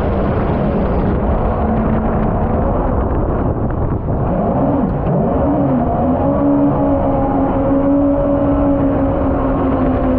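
Mini jet boat's Yamaha MR-1 1.1-litre four-stroke engine, taken from a VX110 WaveRunner, running at speed over a steady rush of water. About four seconds in, the revs dip and climb back, then hold steady at a higher pitch.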